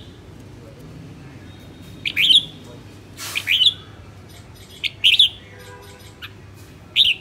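Caged red-whiskered bulbul singing in four short chirping phrases, spaced about one and a half to two seconds apart, with a brief rustle just before the second phrase.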